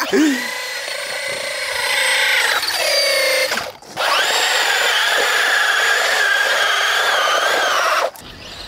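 Electric RC car motor and drivetrain whining at full throttle while the car is held down under a foot and its wheels spin. The whine climbs in pitch, winds down after about three and a half seconds, and after a brief pause runs steady for about four seconds before cutting off suddenly near the end.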